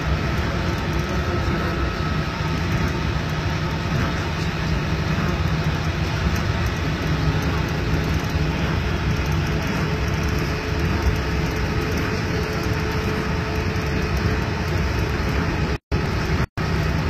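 Interior running noise of an Okinawa Urban Monorail (Yui Rail) car in motion: a steady rumble with a faint whine. The sound cuts out twice, very briefly, near the end.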